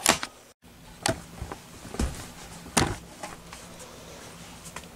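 Fabric and cutting tools being handled on a cutting table: a few short knocks and rustles, the loudest about one, two and nearly three seconds in.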